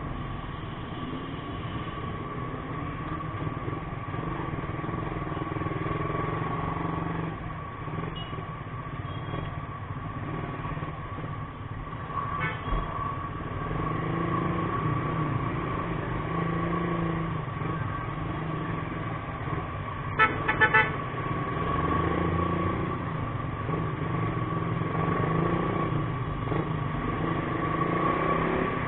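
Motorcycle engine running at low speed in city traffic, its pitch rising and falling with the throttle. About 20 seconds in, a vehicle horn beeps several short times in quick succession.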